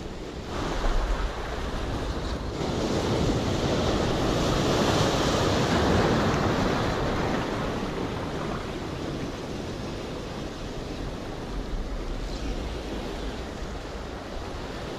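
Surf surging and washing over breakwater boulders: a wave builds a couple of seconds in, peaks midway and eases off, with some wind buffeting the microphone.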